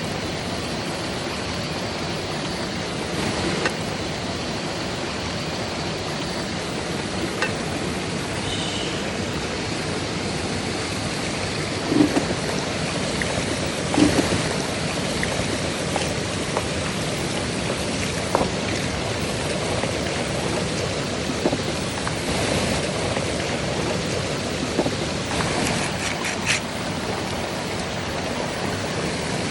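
Steady rushing water of a waterfall, with a few scattered knocks and clicks, the loudest two about halfway through.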